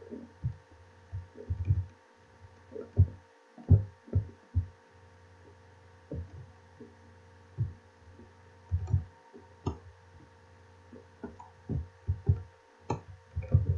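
Irregular low thumps and a few sharper clicks, coming singly and in small clusters, over a steady electrical hum.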